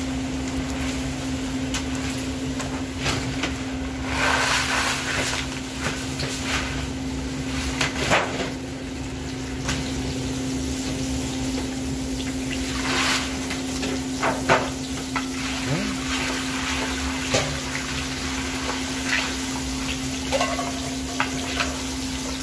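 Krupuk mawar (rose crackers) frying in hot oil in a large steel wok, a steady sizzle, with a metal scoop knocking and scraping against the wok now and then. A steady hum runs underneath.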